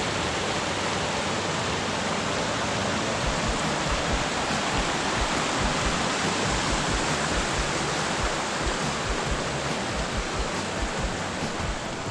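Mountain creek rushing, a steady loud hiss of flowing water, with irregular low thumps underneath.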